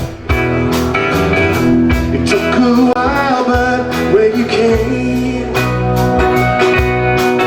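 Band playing a song with guitar and drums to a steady beat.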